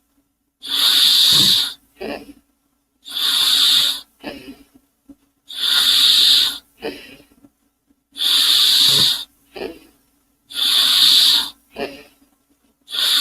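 Steam-engine sound effect: a loud hiss lasting about a second, followed by a short, weaker wheezy puff, repeating about every two and a half seconds, over a faint steady low hum.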